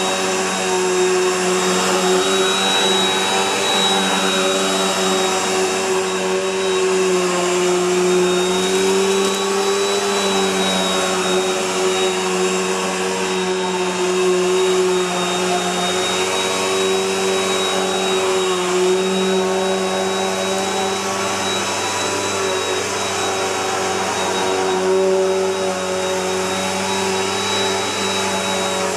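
Bissell PowerLifter Bagged Pet upright vacuum cleaner running steadily: a motor drone with a thin high whine over it, its pitch sagging slightly now and then.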